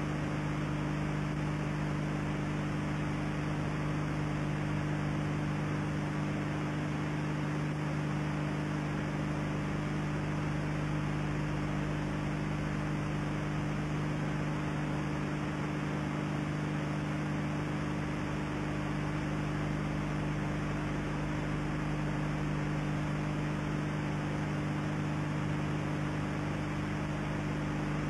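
Steady electrical hum of several low tones over constant hiss: the background noise of an old mid-1980s video recording. No other sound comes through.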